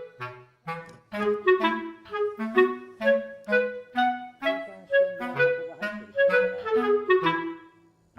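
Instrumental background music: a quick melody of short, separate notes over a lower bass line, pausing briefly near the end.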